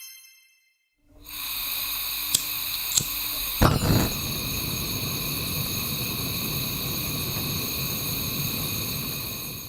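A household electric appliance motor running steadily, a rushing hiss with a high whine over it. Two sharp clicks and a thump come a few seconds in, and the sound cuts off abruptly at the end.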